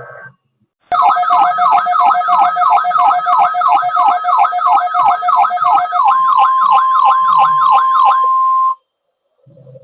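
Weather radio warning alarm: a loud electronic siren of rapid falling sweeps, about three a second, over a steady tone. About six seconds in the steady tone jumps higher, and near the end the alarm cuts off suddenly.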